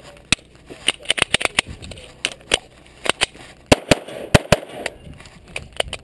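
A 9mm Glock pistol firing a rapid course of fire: about fifteen sharp reports, many in quick pairs, with short breaks between strings.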